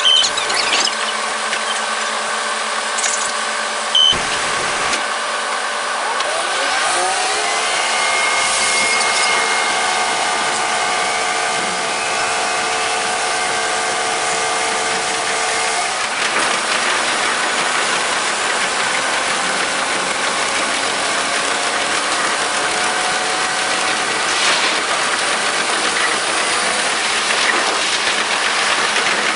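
KiHa 47 diesel railcar's engine heard from on board, rising in pitch as the train pulls away about six seconds in, then holding a steady pitch under power. Its sound changes about sixteen seconds in, and two brief knocks come in the first few seconds.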